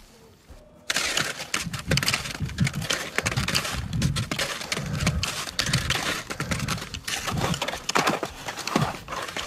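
Splitboard skinning over firm spring snow: the rhythmic swish and crunch of the climbing skins sliding forward, with clicks and knocks from the bindings, about three strides every two seconds. It starts about a second in, after a quiet moment.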